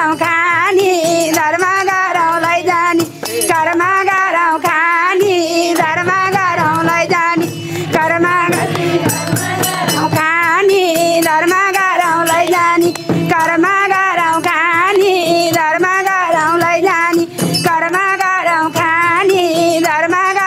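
Nepali devotional bhajan music: a wavering, ornamented melody over a steady drone, with madal drum and jingling percussion keeping the beat.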